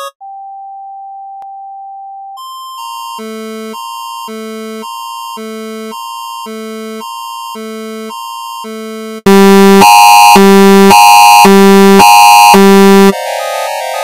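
Synthesized emergency-alert tones: a steady tone, then a regular beeping that alternates a low chord with a higher note, about one and a half beeps a second. About nine seconds in, a much louder, harsh buzzing alarm sounds in a string of short blasts, and it gives way near the end to a rapid warbling run of electronic tones.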